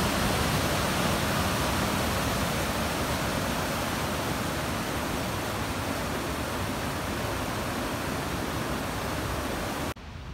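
Whitewater rapids below a waterfall: a steady rush of fast water that cuts off suddenly near the end.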